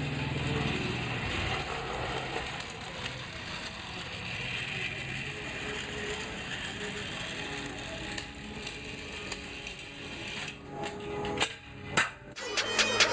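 Small electric motor of a RailKing battery-powered toy train whirring as it runs, with a steady mechanical rattle of gears and wheels on plastic track, and a few sharp clicks near the end. Music with a regular beat comes in just before the end.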